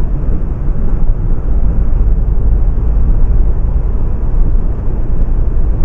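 Steady low rumble of engine and road noise heard inside the cabin of a moving Renault Mégane with a 1.5 dCi four-cylinder diesel.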